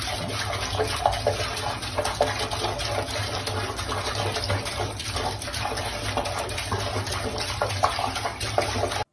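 Tap water running steadily into a bathroom sink, the stream splashing unevenly as a cat paws at it. It cuts off suddenly near the end.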